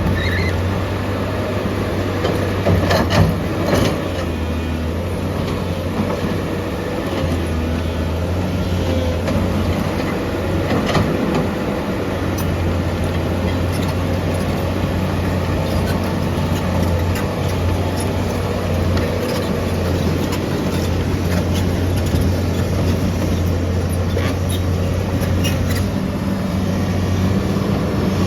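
Heavy diesel construction machinery running steadily with a deep low hum. A few short knocks come about three seconds in and again about eleven seconds in.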